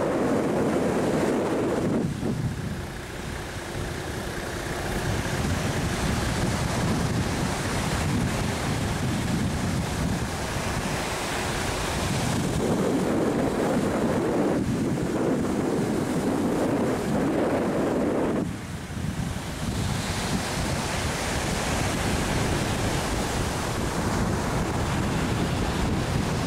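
Surf breaking on the beach, with wind buffeting the microphone; two louder gusts, one at the start and a longer one in the middle.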